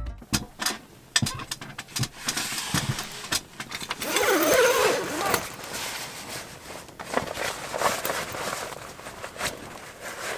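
Scattered knocks and clicks of a rooftop tent and its ladder being handled and climbed, with a brief wavering squeak about four seconds in.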